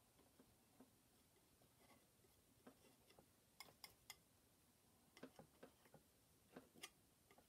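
Near silence, broken by faint scattered clicks and taps of a palette knife laying oil paint onto a small panel and picking it up from the palette, clustering about halfway through and again near the end.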